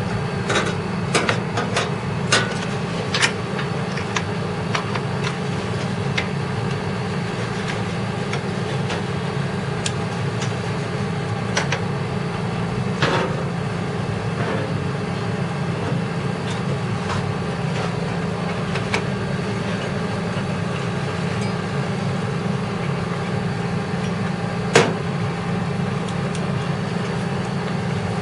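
Scattered clicks and knocks of a CPU cooler being handled and fitted onto a motherboard, several in the first few seconds and a sharp one near the end, over a steady low hum.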